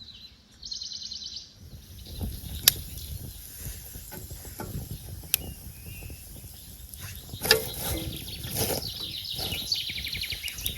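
Small birds singing in short, rapid trills near the start and again near the end, over low rustling and handling noise, with two sharp clicks in between.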